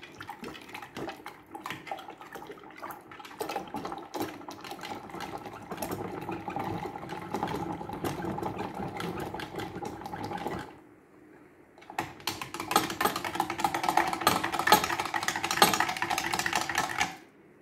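Metal spoon stirred fast inside a glass jar of water and agar powder, clinking rapidly against the glass, which rings. It stops for about a second around eleven seconds in, then carries on.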